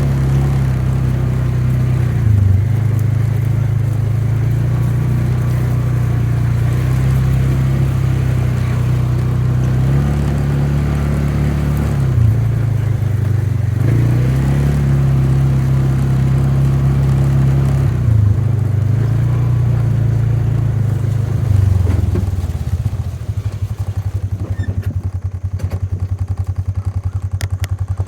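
Vehicle engine running, its speed stepping up and down several times as it is driven, then dropping to a steady, evenly pulsing idle about 23 seconds in.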